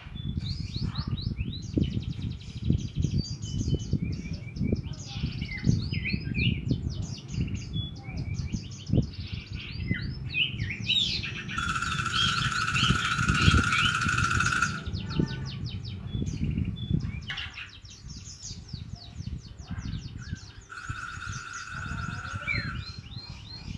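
Young emprit kaji practising its twittering 'ngeriwik' song: quick runs of high chirps and trills, broken by two longer buzzy passages, one about twelve seconds in and another near twenty-one seconds. The bird is still learning the song. A low rumble runs underneath.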